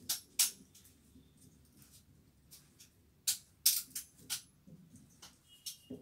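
Irregular sharp, light metallic clicks and taps from hands working on a ceiling fan stator held in a winding machine: two early on, a quick cluster of four or five in the middle, and a few softer ones near the end.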